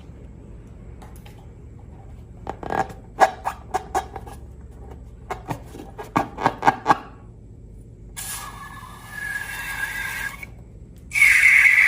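Hands working slime and balloons: a quick run of sharp clicks and pops, then two stretches of hissing with a faint whistle in it, the second louder, near the end.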